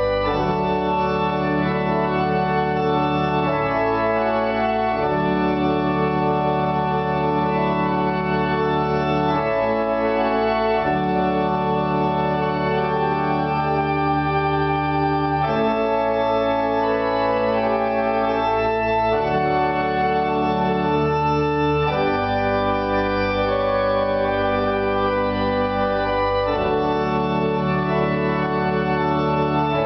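Church pipe organ built by the Močnik organ workshop, playing a slow tune in sustained chords over low held bass notes that change every few seconds.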